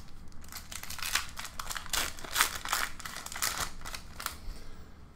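A foil Pokémon booster pack being torn open and crinkled by hand while the cards are slid out, an irregular crackly rustling.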